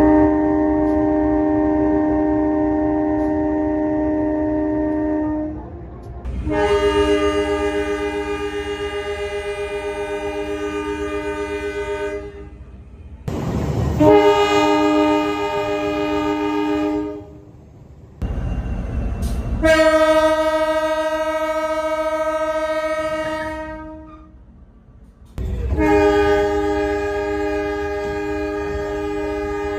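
Horns of GE CC201 diesel-electric locomotives giving the Semboyan 35 horn signal of Indonesian railways. There are five long, steady, chord-like blasts of a few seconds each, with short breaks between them, over a low rumble.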